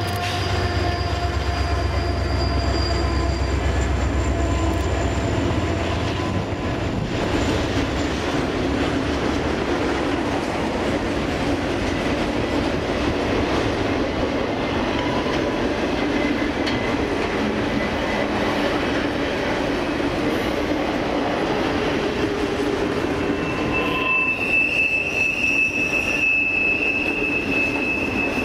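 Diesel locomotive engines humming deeply as the last locomotive of a Union Pacific double-stack container train passes and fades over the first few seconds, followed by the steady rolling noise of loaded container cars on the rails. Near the end a high, steady wheel squeal sets in as the cars round the curve.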